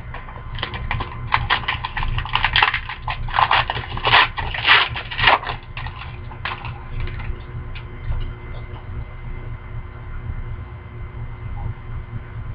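A hockey card pack's wrapper being torn open and crinkled: a rapid, irregular run of crackles lasting about six seconds, then a few faint ticks, over a steady low hum.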